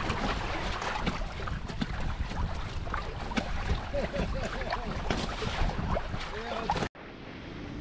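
Water rushing and splashing around the hulls of an inflatable sailing catamaran under way, with wind buffeting the microphone. The sound cuts off abruptly about seven seconds in, leaving a quieter, steadier background.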